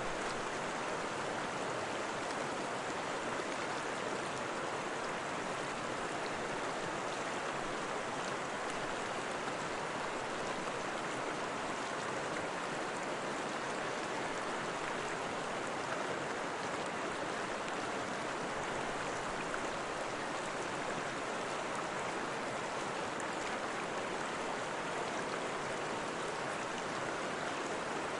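Running water, a steady, even rush with no breaks or changes.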